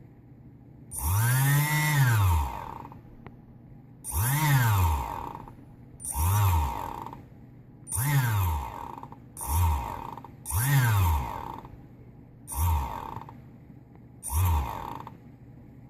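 Electric motor with bad bearings being switched on and off in eight short runs, each winding up in pitch and then coasting down. A harsh, rough noise rides on each run, the clicking of the worn bearings.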